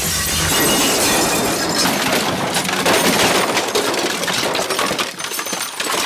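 Loud, continuous crashing and clattering noise, dense with sharp irregular clinks, that dies down near the end.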